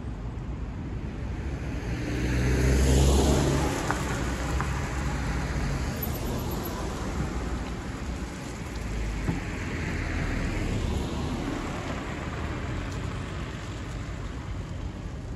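Road traffic at a junction: a vehicle passes loudly with a low engine rumble about three seconds in, and a box van drives past around ten seconds in, over a steady wash of traffic and tyre noise.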